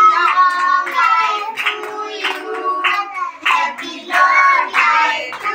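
A group of voices, children's among them, singing a birthday song with rhythmic hand clapping.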